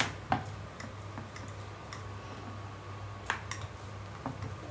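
Wooden rolling pin rolling out dough on a round wooden board: scattered light clicks and knocks, two sharp ones near the start and one about three seconds in, over a faint low hum.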